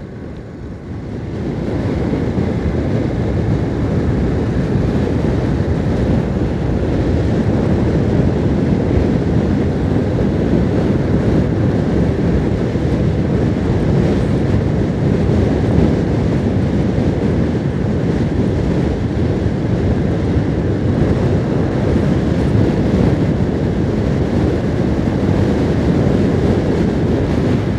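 Motorcycle riding noise picked up by a helmet-mounted camera: wind rush over the microphone mixed with engine and road noise. It is steady, and gets louder about two seconds in.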